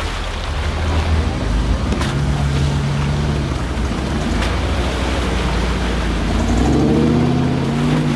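Off-road pickup truck's engine running and revving in deep mud, over a steady wash of churning mud and water; the engine note swells and climbs about seven seconds in.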